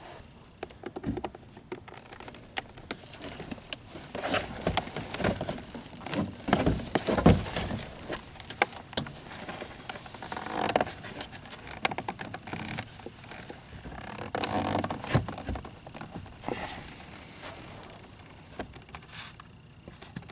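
Irregular plastic clicks, scrapes and rustling from handling a car's inner door panel while a wiring plug on its back is worked loose.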